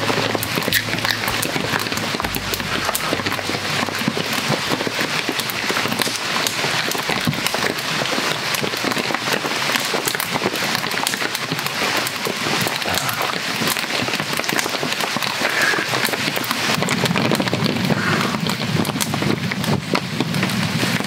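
Steady rain falling, mixed with a wood campfire crackling and popping in sharp snaps.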